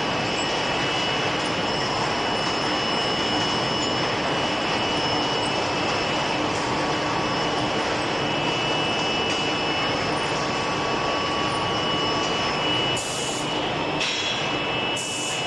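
Steady industrial din of a steel ball production line running: induction heating furnace and hot rolling machinery, with constant high-pitched tones held over the noise. The level dips slightly near the end.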